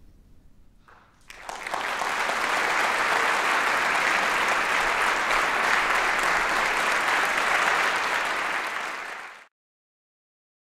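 Audience applause starts about a second in, holds steady, and cuts off suddenly near the end.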